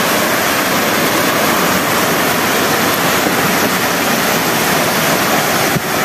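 Waterfall and the rocky cascade below it: a loud, steady rush of falling water.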